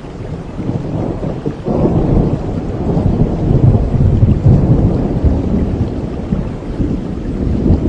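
Steady rain with a long roll of thunder that builds about a second and a half in, is loudest in the middle, and slowly dies away.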